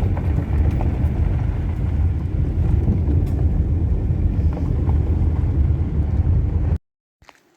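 Road noise inside a moving car: a steady low rumble of engine and tyres, which cuts off abruptly near the end.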